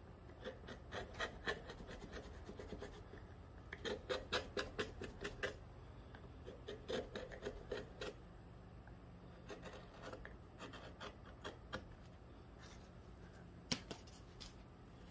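A hand carving tool scraping and cutting tree bark in runs of quick short strokes, with pauses between runs and one sharp click near the end.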